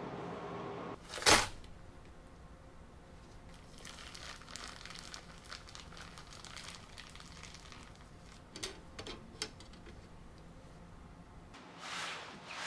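Parchment baking paper crinkling and tearing as it is peeled off the base of a castella sponge cake, a crackly rustle lasting a few seconds. One short, sharp burst, the loudest sound, comes about a second in, and a few light clicks follow later.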